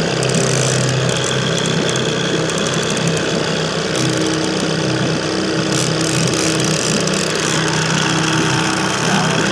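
Boat's outboard motor running steadily at trolling speed.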